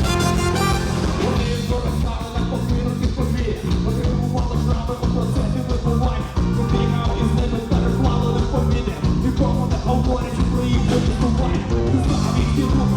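Live rock band playing an instrumental passage: electric guitars, bass and drums with a steady beat, heard through a recording made in the audience.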